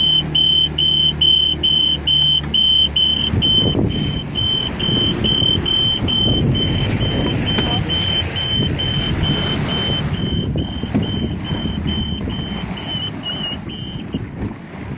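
Boat's engine warning alarm beeping fast and high, about four to five beeps a second, over the running engine. A few seconds in, the engine's steady tone gives way to a rush of wind and water as the boat gets under way, and the beeping stops near the end.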